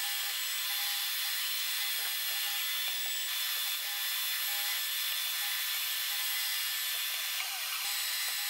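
Milling machine with an end mill cutting the welded-up aluminium camshaft bearing support of a cylinder head, shaping the weld. The spindle and cut make a steady, high-pitched whine and hiss.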